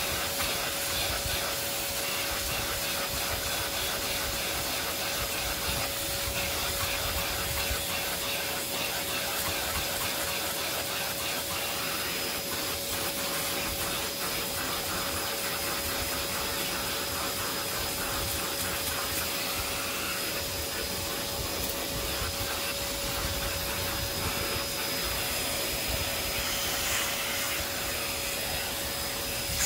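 Vacuum cleaner running steadily with a constant whine, its crevice tool sucking dust off a dust-caked vacuum filter.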